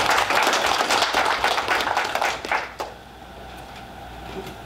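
Audience applauding, a crowd of hand claps that dies away about three seconds in.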